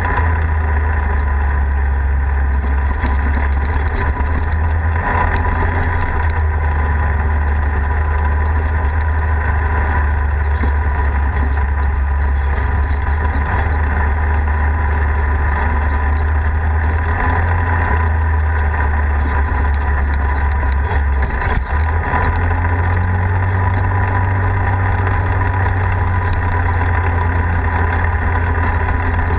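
Polaris RZR side-by-side's engine running steadily while driving along a dirt road, a constant low drone with scattered light knocks and rattles from the ride over the gravel.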